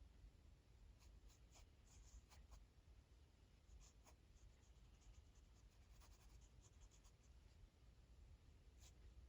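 Faint taps and strokes of a stylus on an iPad screen while drawing, scattered light ticks over a low background hum.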